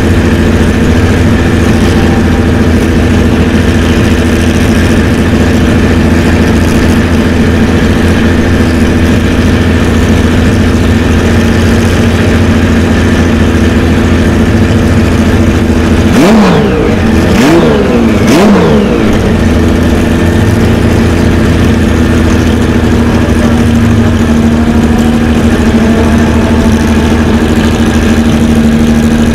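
Porsche 917's air-cooled flat-twelve engine idling loudly through its twin exhaust pipes. Just past the middle it is blipped three times in quick succession, each rev rising and falling in about a second, before it settles back to idle.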